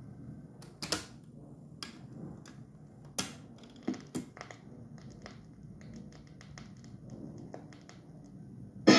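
1966 Dansette Transit record player's autochanger mechanism cycling: a few sharp clicks and clunks in the first half as the tonearm swings over to the record, then a run of lighter ticks, over a faint motor rumble.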